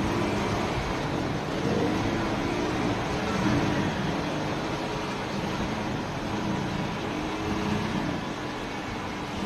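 Car engine idling, heard from inside the car, as a steady low rumble.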